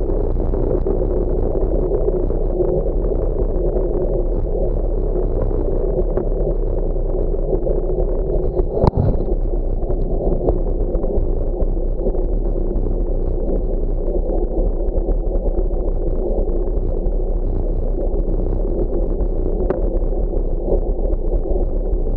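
Steady rush of wind and tyre noise picked up by a bicycle-mounted camera rolling along a paved road, with one sharp knock about nine seconds in.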